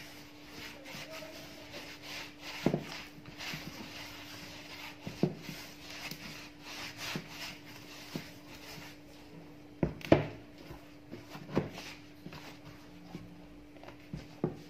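Soft brioche dough kneaded by hand in a plastic mixing bowl: continuous rubbing and squishing of the dough against the floury bowl, broken by about six sharp knocks as the dough and hands hit the bowl, the loudest about ten seconds in.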